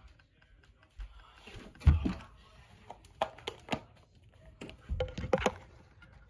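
Handling noise from the recording phone as it is covered and moved: irregular knocks, clicks and rubbing against the microphone, with a heavier thump about two seconds in and a cluster of knocks near five seconds.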